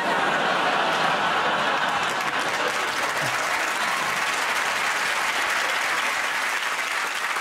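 Studio audience applauding, starting suddenly and holding steady throughout.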